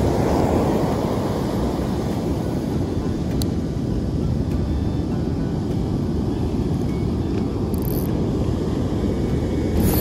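Heavy surf breaking on the beach, a steady low rumbling noise, with wind buffeting the microphone.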